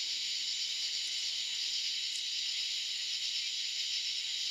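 A steady, unbroken high-pitched chorus of night insects, such as crickets or katydids, with no bangs or pops.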